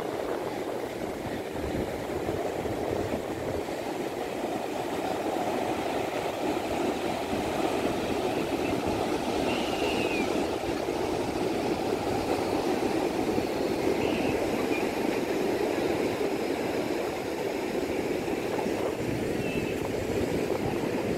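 Steady roar of surf breaking on a sandy sea beach, swelling slightly, with a few faint short high chirps over it.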